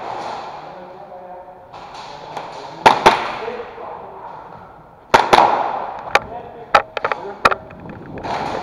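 Airsoft guns firing sharp single shots: a pair about three seconds in, then a quicker scattered string of cracks from about five seconds on.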